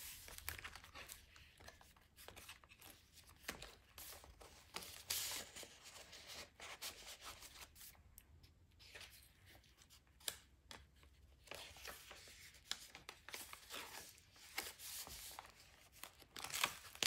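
Thick paper pages of a handmade journal being turned and handled: faint, scattered rustles and swishes of paper.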